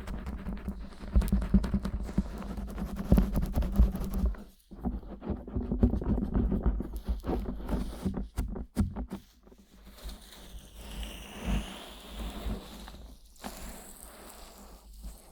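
Fingers rubbing and scratching the silicone ears of a 3Dio binaural microphone, crackly and full of quick clicks. About ten seconds in it turns to a softer, smoother rubbing.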